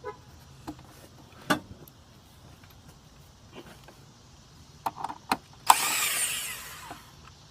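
A few light clicks and knocks of tools and sockets, then a cordless impact tool runs for just over a second near the end, backing out a bolt.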